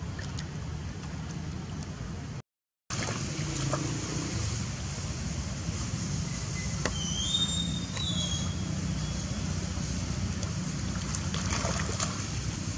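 Water sloshing and splashing as macaques swim and tussle in a muddy pool, over a steady low rumble. The sound cuts out for a moment about two and a half seconds in, and two short high chirps are heard around seven to eight seconds in.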